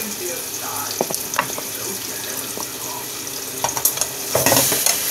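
Cheese melting in a pot on the stove, with a steady sizzling hiss, a few light clicks of a utensil, and a louder clatter near the end.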